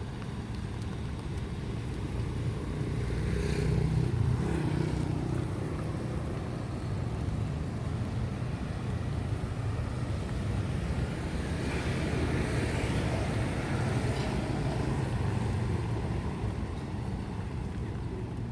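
Street traffic on a wet road: a steady low rumble with two vehicles swelling past, the first about four seconds in and the second about two-thirds of the way through, their tyres hissing on the wet surface.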